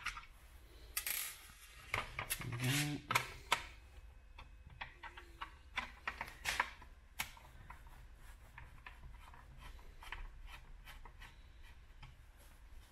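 Screwdriver backing small screws out of a plastic headlamp housing: scattered small clicks and scrapes of the driver tip and the plastic parts being handled. They come thickest in the first few seconds and thin out after.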